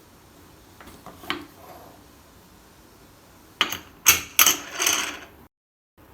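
Pressure cooker letting off steam: several short, sudden hissing bursts mixed with light metallic clinks, starting about three and a half seconds in and cutting off abruptly.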